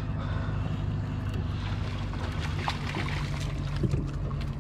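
Boat engine running with a steady low hum, under wind and water noise, with a couple of light knocks in the second half.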